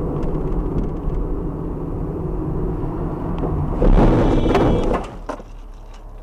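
Steady engine and tyre rumble of a car driving in city traffic, heard from inside the cabin. About four seconds in there is a louder rush of noise lasting about a second, after which it goes quieter as the car comes to a stop behind a stopped car.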